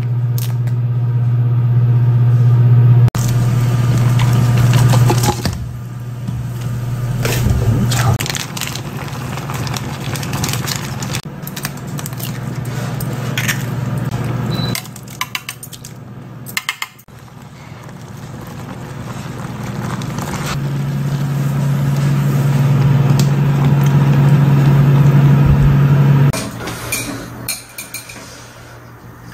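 Kitchen sounds of instant noodles being prepared: packaging crinkling and pot and utensil clatter and scraping, over a steady low hum that stops and returns.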